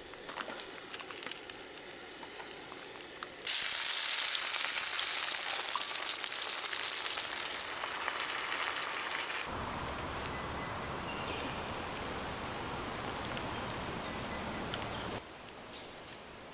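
Food sizzling in a frying pan, heard in several abrupt cuts: a faint crackle, then a loud steady sizzle from about three and a half seconds in, a lower rushing noise from about nine and a half seconds, and a quieter hiss near the end.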